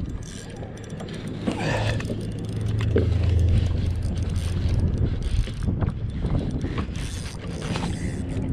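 Fishing reel being wound in against a hooked fish: a mechanical whirring with quick clicks, swelling louder for a few seconds in the middle.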